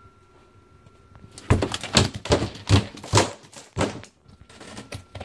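A rapid run of knocks and thuds, about four a second for some two and a half seconds starting about a second and a half in, as a large lizard thrashes a struggling rat in its jaws against the enclosure wall.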